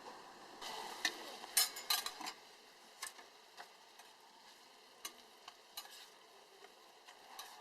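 Offal (horumon) sizzling on a grill, with sharp clicks: a quick cluster of them about a second in, then single ones every half second or so.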